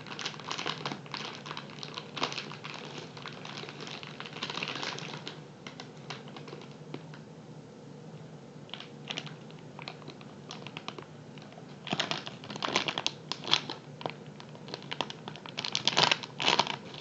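Thin plastic packaging bag crinkling and crackling as a squishy is unwrapped from it, in quick rustling bursts. The crinkling is quieter for a few seconds in the middle and comes back louder and busier near the end.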